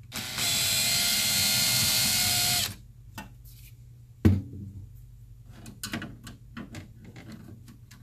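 Cordless drill running steadily for about two and a half seconds and then stopping, its long, thin bit drilling through the power supply's mounting hole into the metal cabinet floor to mark the hole. A sharp knock follows a second and a half later, then light handling clicks.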